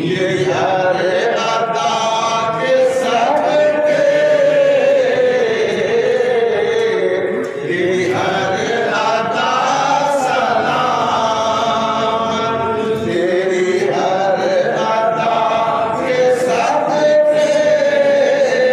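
A man singing a Sufi manqabat unaccompanied, in long held notes that waver and glide in pitch.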